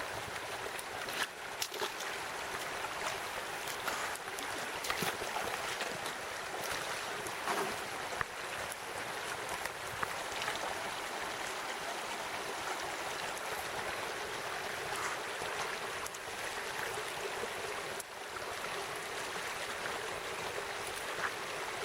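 Steady rushing of a shallow stream flowing, with a few brief knocks or splashes in the first half.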